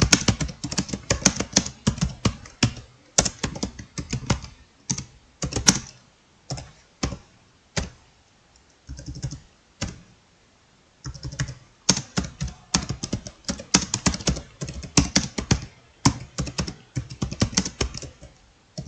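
Laptop keyboard being typed on quickly, fast runs of key clicks with short breaks and a longer pause of a few seconds about halfway through.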